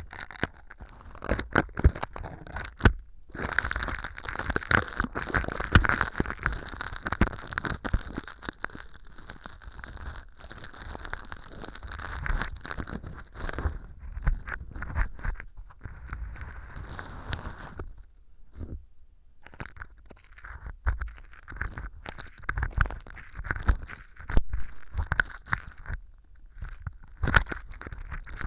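Close-miked ear pick scraping and crackling through fake earwax of Styrofoam powder and sawdust inside an ear model, a dense run of crunchy clicks and scrapes. It pauses briefly three times: about 3 s in, for about two seconds near the middle, and again shortly before the end.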